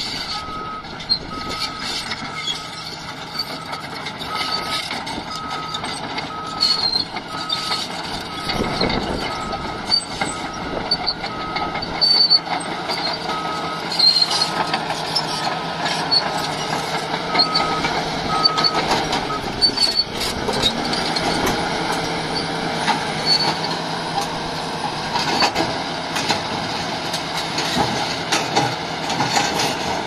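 Caterpillar D6T crawler dozer's diesel engine running under load with clanking tracks. Its reversing alarm beeps about once a second until about two-thirds of the way through, then stops. After that the dozer drives forward, its blade scraping and knocking through broken rock.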